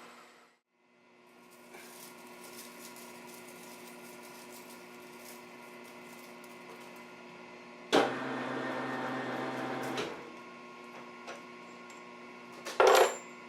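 Milling machine running steadily while drilling a hole, with a louder stretch of about two seconds about eight seconds in and a sharp knock near the end.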